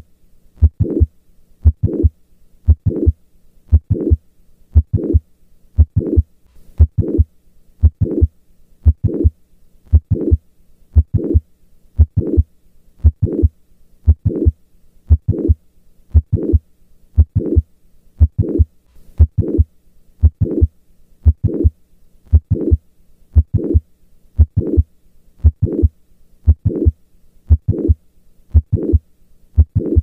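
Heart sounds of mitral valve prolapse heard through a stethoscope at the apex: regular beats about one a second, each a close group of thumps carrying the systolic click and murmur of the prolapsing mitral valve.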